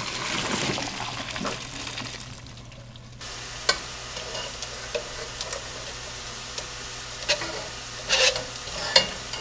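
Hot water and penne poured from a pot into a colander in the sink: a steady rush that fades out over about three seconds. Then drained penne tipped from a wire mesh strainer back into the pot, with scattered light clicks and taps, more of them near the end.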